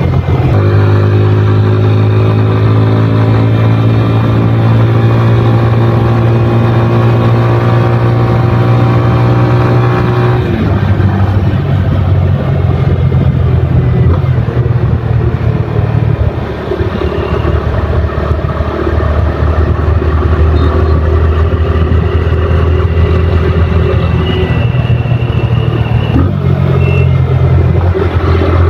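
Yamaha FZ25's 249 cc single-cylinder engine and exhaust under way, heard from the rider's seat: the note climbs steadily for about ten seconds as the bike accelerates, drops at a gear change, eases off briefly a little past the middle, and changes pitch again near the end.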